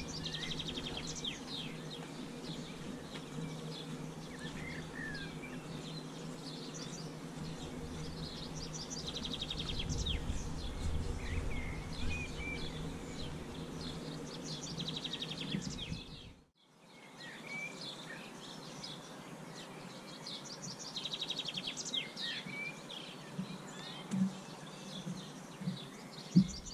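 Songbirds singing, with one bird repeating a short phrase that ends in a fast, high trill every few seconds, over steady low outdoor background noise. The sound drops out briefly about two-thirds of the way through.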